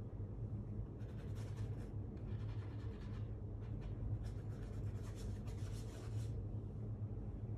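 A paintbrush loaded with watercolor paint brushed across paper in a run of short strokes, over a steady low hum.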